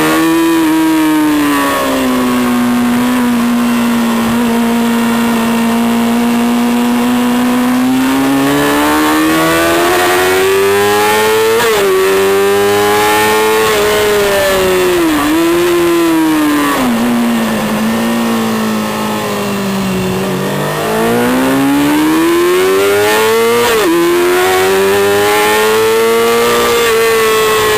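Racing motorcycle engine heard onboard at high revs, its pitch climbing under full throttle and dropping sharply at upshifts about 12 and 24 seconds in. Around 17 to 20 seconds the revs fall away and the engine goes lower and a little quieter while slowing for a corner, then it climbs again. Steady wind rush underneath.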